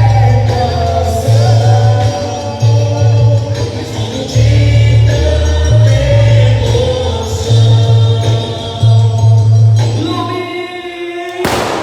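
Loud amplified music for a quadrilha junina dance: several voices singing over a strong pulsing bass beat. The beat drops out about ten seconds in, and a short loud burst of noise follows near the end.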